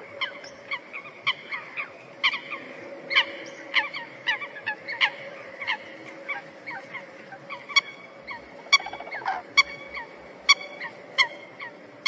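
A flock of geese honking: many short calls overlapping, growing busier in the second half.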